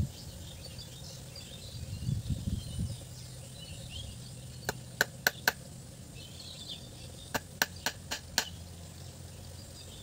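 Claw hammer tapping a small nail into a wooden stick joint with light, sharp taps: four quick taps about five seconds in, then five more a couple of seconds later. Faint bird chirping behind.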